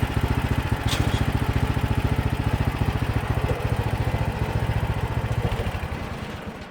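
Small gasoline engine of a Mechmaxx band sawmill idling with an even, rapid beat, then shut off: it slows and dies away over the last second or so.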